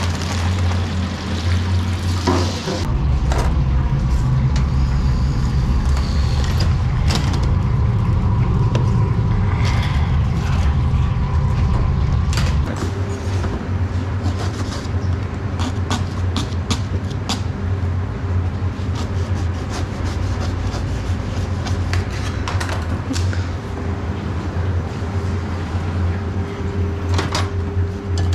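Steady low hum of commercial kitchen equipment, louder for about ten seconds near the start, under scattered clicks and knocks of handling. A plastic bag of frozen fries rustles at the very start.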